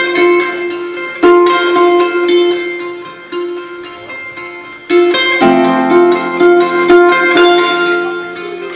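Solo harp playing plucked notes and chords that ring on. A fresh stroke comes about a second in, and fuller chords with deeper bass notes enter around five seconds in.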